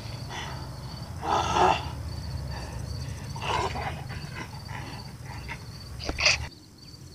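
Monster growls and snarls in loud bursts every couple of seconds over a steady low rumble, with a sharp shriek just before the rumble cuts off suddenly near the end. A faint insect chirping runs underneath.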